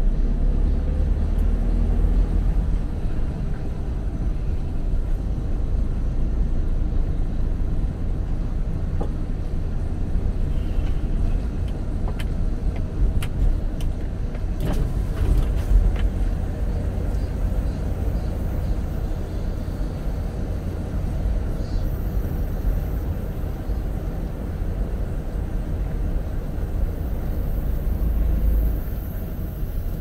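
Steady low rumble of a car's engine and tyres while driving, with a few faint clicks around the middle.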